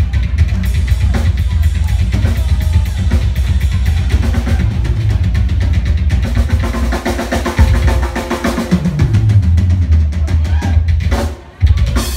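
Drum kit played in a live rock drum solo: fast runs of strokes over a heavy bass drum, with a short break near the end before the hits resume.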